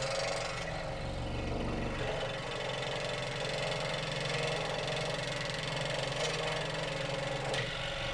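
A machine motor running with a steady low hum.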